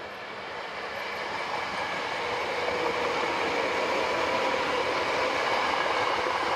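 Hankyu 6300 series electric train passing, its wheels rolling on the rails; the noise grows louder over the first three seconds as it approaches, then holds steady, with a faint steady tone running through it.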